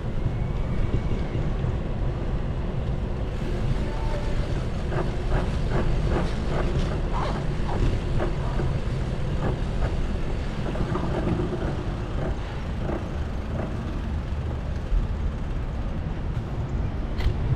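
Wind rumbling over a bicycle-mounted action camera while riding, with road and traffic noise. A run of short clicks and rattles comes in the middle and a couple more near the end.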